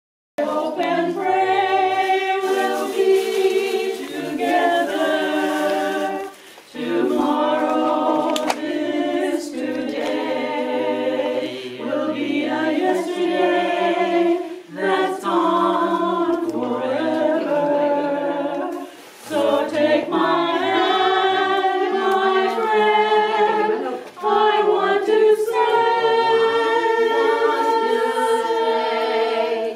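A small group of women singing together a cappella, sustained sung phrases with short breaks between them.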